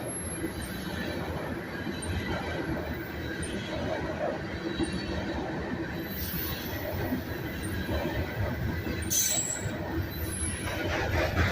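Loaded coal hopper cars of a freight train rolling past, a continuous rumble of steel wheels on rail that grows louder near the end. The watcher says this train's wheels are full of flat spots.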